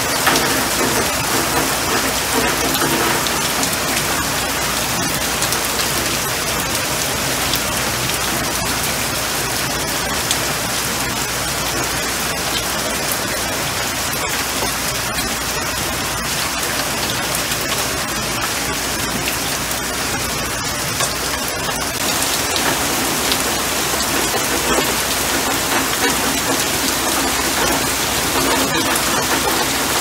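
Steady rain falling on leafy plants: a continuous hiss with many separate drop hits ticking through it, its level even throughout.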